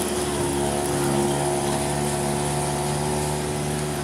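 Tourist road train's engine running at a steady drone.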